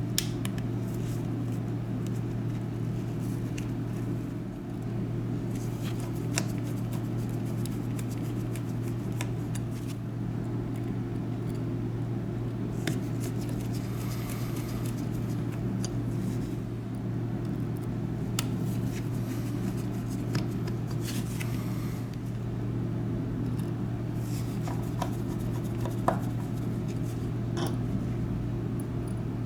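A steady low hum, with scattered small clicks and light scrapes from small repair tools handling phone parts.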